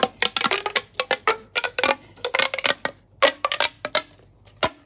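Plastic pop tube being pushed back together, its corrugated ribs snapping closed in a fast, irregular run of pops and clicks that thins out to a single click near the end.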